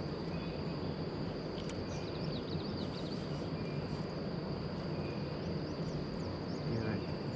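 Insects trilling steadily at one high pitch, over a continuous low outdoor rumble, with a few faint short chirps.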